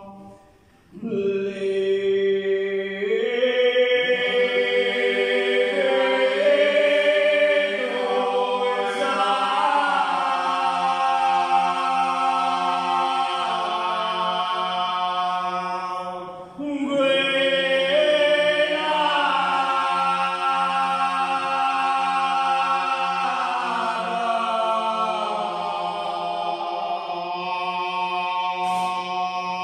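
Confraternity members singing an unaccompanied Holy Week chant in several voices over a steady held low note, in long drawn-out phrases that break briefly about a second in and again about halfway through.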